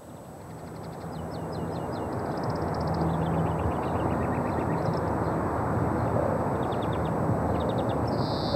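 Rural outdoor ambience fading in: a steady low drone and wind-like noise, with short bursts of high bird chirping over it.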